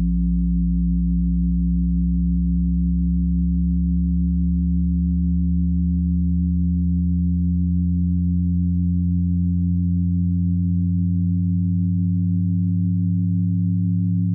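Steady electronic drone of several low, pure tones held together, with the lowest tone slowly rising in pitch.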